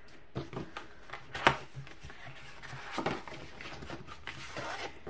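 Paper and cardstock handled on a table: a few sharp taps as cards are set down, the loudest about a second and a half in, then rustling as a folded card folder is opened.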